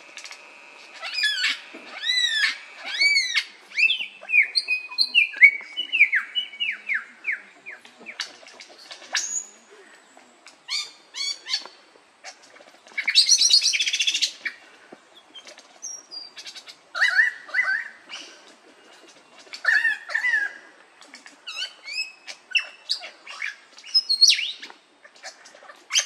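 Male superb lyrebird singing in its tail display: a rapid, varied string of mimicked calls, with repeated arched notes, falling whistles and sharp clicks that change type every second or two. A harsh rasping burst comes about halfway through.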